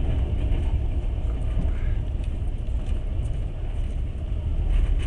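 Passenger train running along the track, a steady low rumble of wheels on rails heard from inside the carriage.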